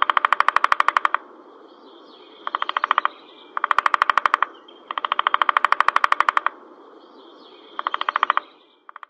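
Woodpecker drumming on wood: about five rapid rolls of knocks, each lasting half a second to a second and a half, with short pauses between them.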